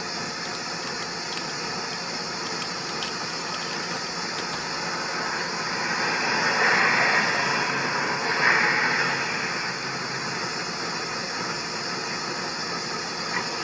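Steady roadside traffic noise, with a vehicle passing by and growing louder about six to nine seconds in.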